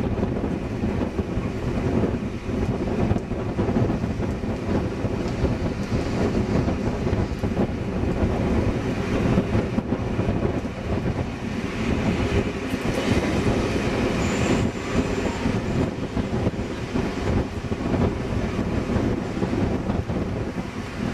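Heritage passenger train running on the rails, heard from an open carriage window: a steady wheel-and-rail rumble with clickety-clack over the rail joints. A brief high squeal comes in about two-thirds of the way through as the carriages round a curve.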